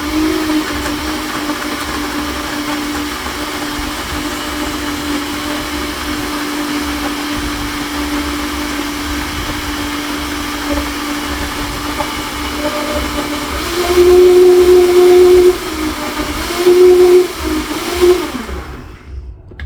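Kitchen blender running, blending bananas and ice cream into a smoothie: a steady motor hum, then it runs louder and a little higher twice near the end before switching off.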